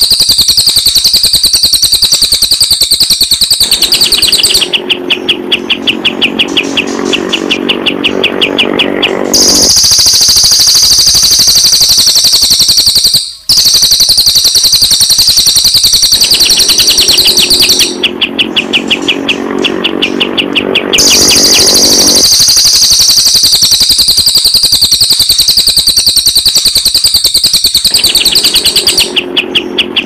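Recorded song of cililin and kapas tembak songbirds, played as a looped master track for training cage birds. Loud, fast, high chattering song alternates every few seconds with a lower, rapidly repeated pulsing call, with a brief dropout about 13 seconds in.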